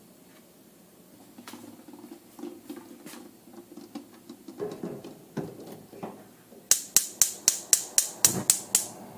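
Pot lid and saucepan clattering as the pot is set on a gas range. Then the burner's spark igniter clicks rapidly, about nine sharp clicks at roughly four a second, while the burner is being lit.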